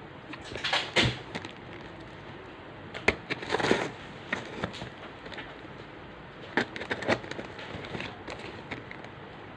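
Plastic packaging being handled and crinkled in irregular bursts of rustling, with sharp clicks, the loudest about a second in and between three and four seconds in.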